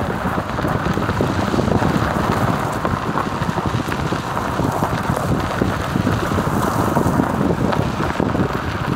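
Maruti Suzuki Alto driving over a rough dirt forest track: a loud, steady rumble of tyres on gravel and bumps, with wind buffeting the microphone at the open window.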